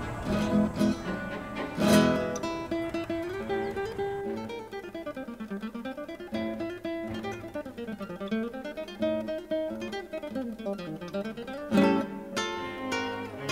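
Background music on acoustic guitar: strummed chords at the start and again near the end, with picked runs of single notes falling and rising in between.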